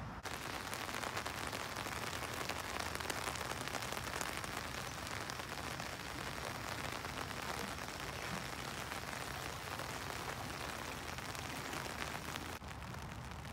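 Steady rain falling, a dense hiss of many small drop ticks. It starts suddenly just after the start and cuts off sharply near the end.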